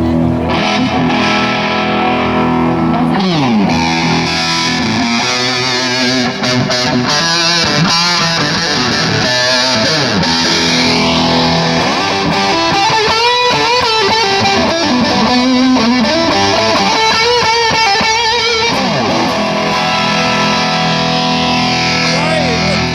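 Band playing without vocals: a distorted electric guitar takes a lead with string bends and vibrato over sustained chords.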